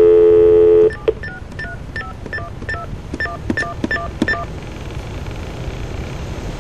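A loud steady telephone tone for about a second, then a quick run of about a dozen touch-tone (DTMF) digit beeps as a number is keyed in, followed by faint phone-line hiss.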